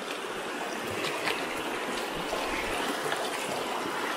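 Shallow, rocky creek flowing steadily, with the splash and slosh of trail-running shoes wading through the ankle-deep water.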